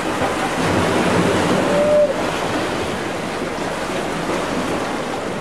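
Steady rush of sea water and waves with wind buffeting the microphone, swelling slightly about two seconds in.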